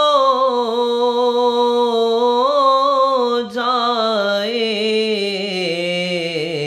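A man's voice singing a devotional Urdu naat (salam) unaccompanied, holding long drawn-out notes with vibrato. The phrase breaks briefly about three and a half seconds in, then a new phrase starts.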